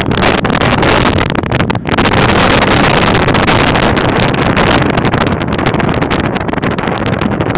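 Strong wind buffeting a phone's microphone: a loud, steady rush with many brief crackles from the air and handling.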